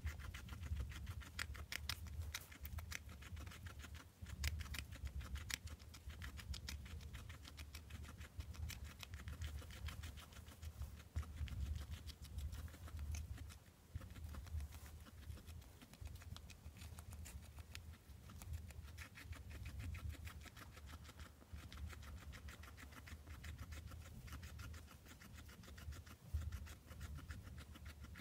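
Hairless guinea pig chewing a juicy cherry tomato: rapid, wet, close-up crunching and smacking clicks, fast and continuous with brief pauses.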